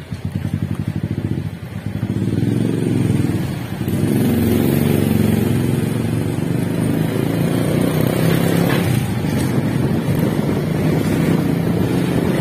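Motorcycle engine heard from the pillion seat while riding. It runs with a pulsing beat at first, then grows louder and runs steadily from about four seconds in.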